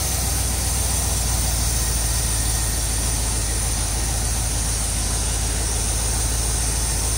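1973 Corvette Stingray's V8 engine idling steadily with the hood up, running again after sitting 25 years.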